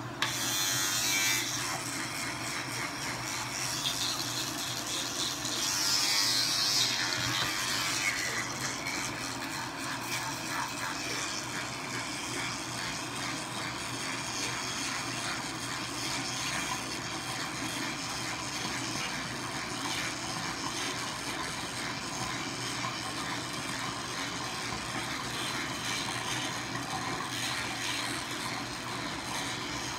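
A toothbrush scrubbing teeth: steady scratchy brushing, busiest in the first several seconds, over a constant low hum.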